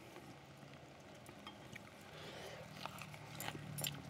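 Quiet eating sounds: a few faint, sharp clicks of metal chopsticks against the griddle and dishes, mostly in the second half.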